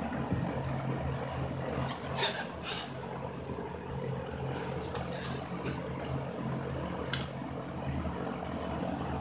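Brass AC line union fittings and wrenches being handled, giving a few light clicks and clinks, the sharpest about two and a half seconds in, over a steady low hum.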